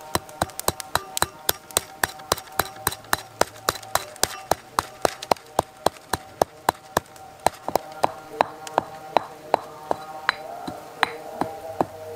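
Stone pestle pounding an ingredient in a stone mortar, a steady run of sharp knocks at about three to four strikes a second.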